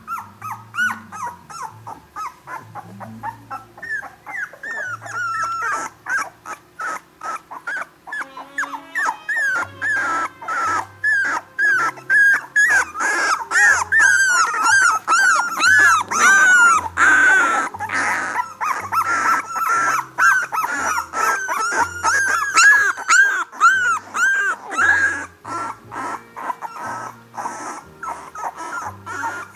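17-day-old Nova Scotia Duck Tolling Retriever puppies whimpering and squealing: many short cries that rise and fall in pitch, coming thick and fast through the middle, over background music with a low bass line.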